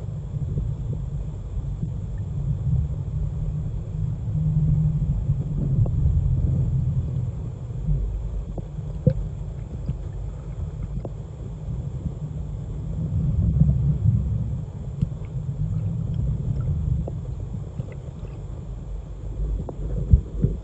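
Muffled low rumble of pond water heard through a submerged microphone, swelling and easing, with a few faint clicks.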